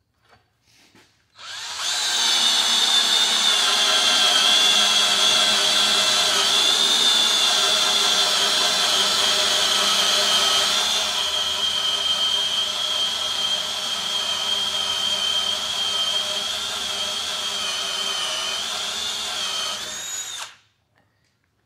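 Handheld power drill turning a 1/2 inch tapered reamer, enlarging a pre-drilled hole in a steel truck frame. The motor starts about a second in, runs with a steady high whine for nearly twenty seconds, then stops abruptly.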